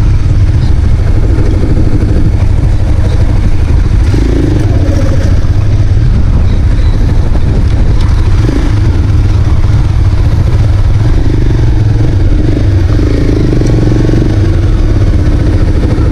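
Motorcycle engine running steadily at low city-riding speed, under a heavy, constant low rumble of wind on the microphone.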